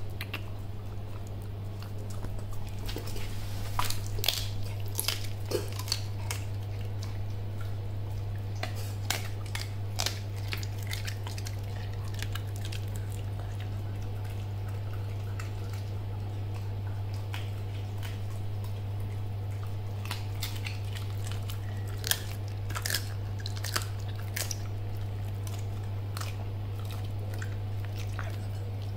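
A puppy chewing raw chicken wings, the bones giving sharp crunches and cracks in scattered bouts with pauses between. A steady low hum runs underneath.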